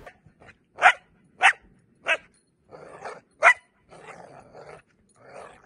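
Young dog barking: four short, sharp barks a fraction of a second to a second apart, with softer noisy sounds between them.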